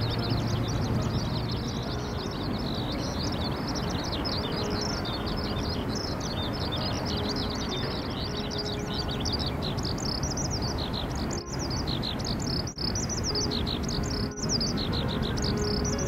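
Many small birds chirping continuously: a dense run of short, high, falling chirps over a steady background hiss. The sound briefly drops out three times in the second half.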